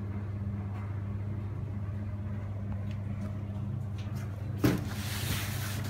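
A steady low hum, with a single sharp knock about four and a half seconds in, followed by about a second of rustling.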